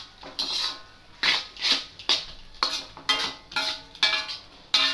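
Noodles being stirred in a pan: a utensil scraping and knocking against the pan in quick repeated strokes, about two to three a second.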